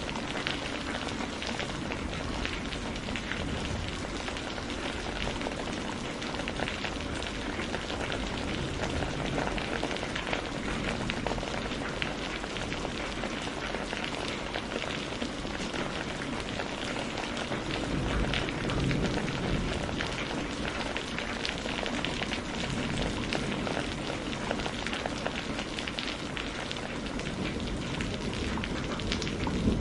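Steady rain falling on a surface: a continuous hiss of many fine drop ticks. A low rumble swells briefly past the middle.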